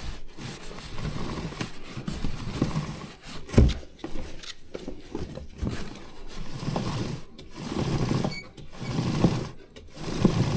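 A rag rubbing over a motorcycle drive chain in repeated wiping strokes about a second apart, with a sharp knock about three and a half seconds in.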